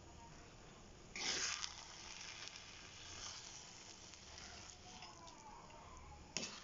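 Thick purple sticky rice sizzling in a pan as it is stirred with a metal spatula, with a louder burst of stirring noise about a second in and a short one near the end.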